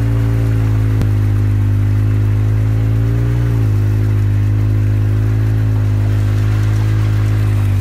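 Polaris RZR 800 side-by-side's twin-cylinder engine running steadily under load while the tires push through a mud hole, with mud and water splashing. The engine pitch lifts slightly about three seconds in, then drops back.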